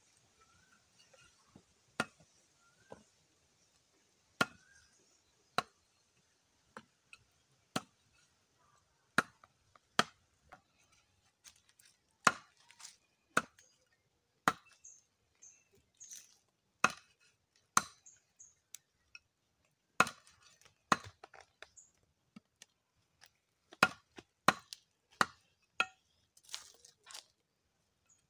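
A bolo knife chopping raw pork on a split bamboo board, in sharp, irregular strikes about one to two a second, coming more often in the second half.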